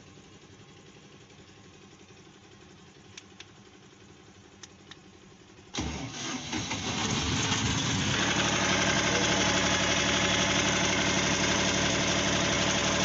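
A few faint clicks, then about six seconds in a diesel generator engine is cranked by its starter, catches and settles into a steady run.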